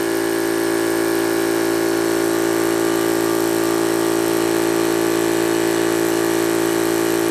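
Yong Heng high-pressure PCP air compressor running steadily under load, a constant mechanical drone as it pumps air into a tank at about 3,600–3,700 PSI.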